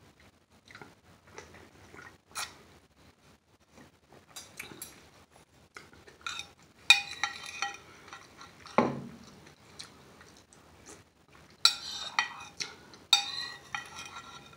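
Metal spoon clinking and scraping against a white bowl as soup is spooned out. The sound comes as scattered clicks with two longer, louder stretches of scraping and ringing, about seven seconds in and again near the end. One duller, lower sound falls between them, about nine seconds in.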